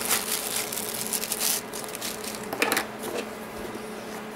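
Thin clear plastic bag crinkling as it is handled and opened, then one short sharp rustle a little under three seconds in. A faint steady electrical hum runs underneath.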